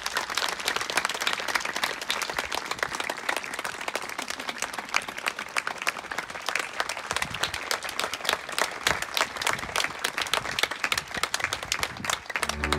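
A crowd applauding steadily, with one pair of hands clapping close by.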